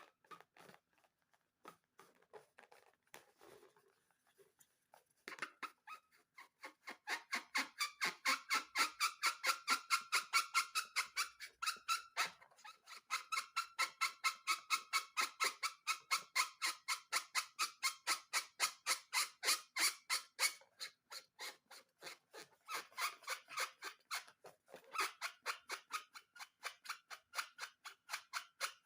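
Scissors snipping through rubber balloons in quick repeated cuts, about four a second, each with a squeaky edge; the cutting starts about five seconds in and pauses briefly a couple of times near the end.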